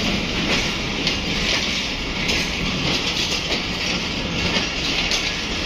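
Pakistan Railways passenger coaches rolling slowly past along a station platform, a steady rumble with the clatter of wheels over rail joints.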